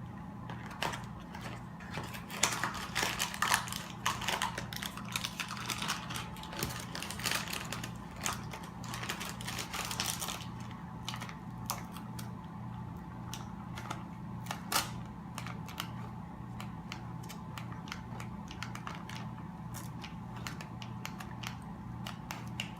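A utensil clicking and scraping against a bowl while cream-cheese icing with powdered sugar is stirred by hand. The clicks are dense for the first ten seconds or so, then sparser, over a low steady hum.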